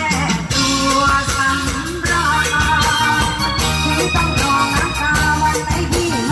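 Live Isan toei music from a luk thung–mor lam stage band, played to a steady dance beat, with a woman singing.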